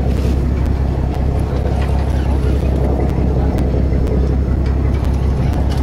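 Boat engine running steadily, a loud low hum, with a few faint ticks scattered over it.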